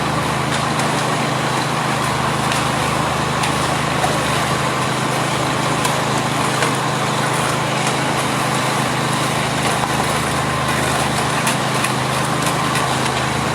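An engine running steadily at constant speed, a continuous low drone that does not change in pitch.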